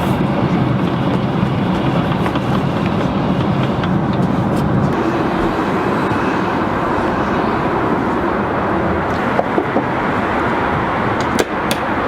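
Steady rushing cabin noise of an Airbus A380 airliner at cruise, airflow and engines, with a low hum that shifts about five seconds in. A few light clicks come near the end.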